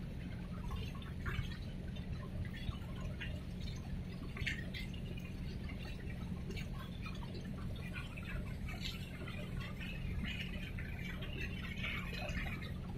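Harbour water lapping and splashing in small irregular slaps, over a steady low drone.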